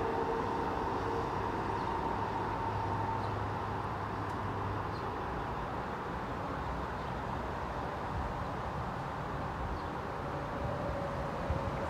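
Amtrak Acela trainset running away down the track, its steady rumble with a thin whine that dies out about three seconds in, leaving a fading hum.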